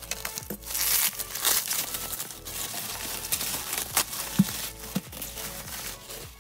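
Plastic bubble wrap crinkling and rustling in irregular bursts as it is cut open and pulled off a small cardboard box, with a few sharp clicks.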